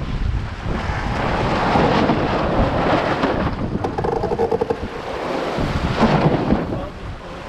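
Wind buffeting the microphone over the rush of water along the hull and wake of a sailing yacht under way. A short buzzing tone comes through about four seconds in.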